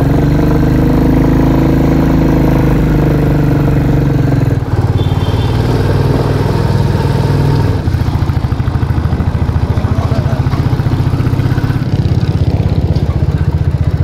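Royal Enfield Bullet's single-cylinder engine running as the motorcycle is ridden, heard from the rider's seat. Its note rises and falls over the first few seconds, drops briefly about five seconds in and again near eight seconds, then settles into an even thumping pulse.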